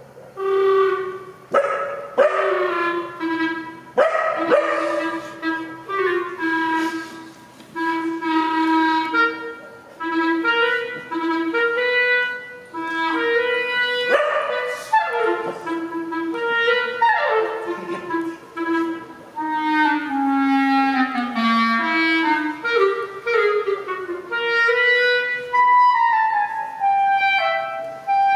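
Clarinet improvising a slow line of short held low notes, broken several times by quick falling slides from high squeals. Near the end it moves to a higher held note that sinks gradually.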